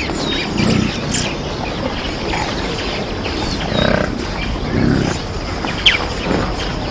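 African buffalo grunting, a herd giving low calls about three times over a steady background of outdoor noise.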